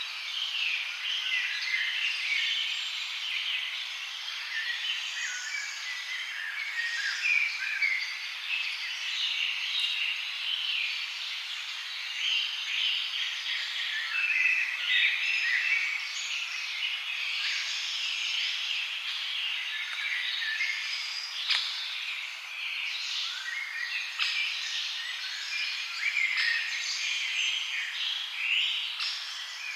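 A chorus of forest birds, many calling and singing at once in overlapping chirps and short warbled phrases, with no pause.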